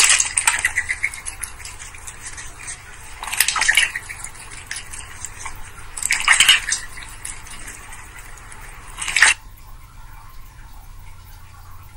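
White duck dabbling its bill in a steel bowl of water: rapid wet slurping clicks, with louder splashy bursts about every three seconds, stopping about nine seconds in.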